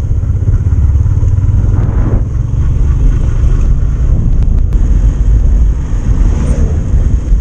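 Motorcycle in motion, heard as a steady, loud low rumble of engine and ride noise.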